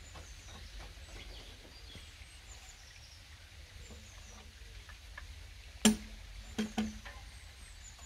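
Wild service tree log being turned on a sawmill bed with a cant hook: one sharp knock about six seconds in, then two quicker knocks. Small birds chirp in the background.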